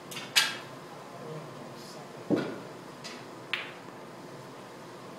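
A snooker shot: a light click then a sharp clack of the balls near the start, a duller knock about two seconds in, then two lighter clicks as the balls roll on.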